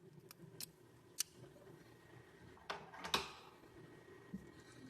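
Freshly cut key being tried and turned in a Toyota door lock cylinder: a few faint, separate metallic clicks, the loudest a quick pair about three seconds in.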